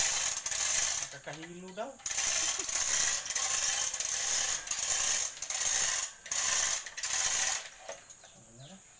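Manual chain hoist being hauled to lift an engine: the hand chain rattles through the hoist and the ratchet clicks in a run of pulls about a second each, dying down near the end.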